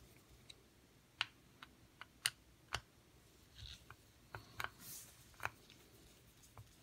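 A screwdriver backing small screws out of the steel bracket on a dishwasher water inlet valve's brass body: about a dozen light clicks and ticks at irregular spacing.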